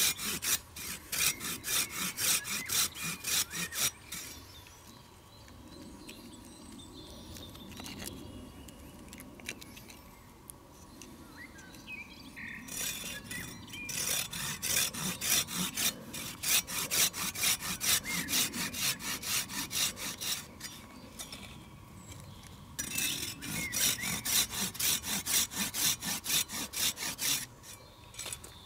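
Folding pruning saw cutting through a birch log in fast, rhythmic back-and-forth strokes, in three bouts with quieter pauses between them.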